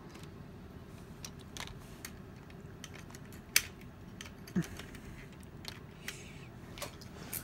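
Handling noise: scattered soft clicks and taps as the recording phone and toys are moved about on a blanket, over a low steady hum. The sharpest click comes about three and a half seconds in.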